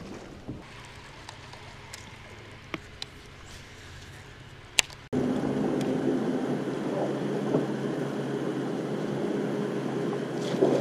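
Quiet on-the-water sound from a fishing boat with a few sharp clicks, the loudest just before halfway. Then, with an abrupt cut, a louder steady hum with a low drone runs on.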